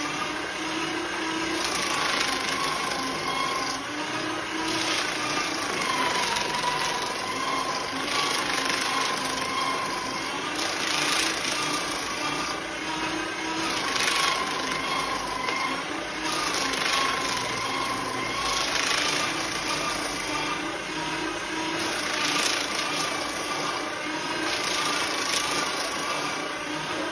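Electric office paper shredder running while sheets of paper are fed through it one after another. Each sheet brings a louder stretch of cutting and tearing noise, and the motor's tone drops briefly as it takes the load.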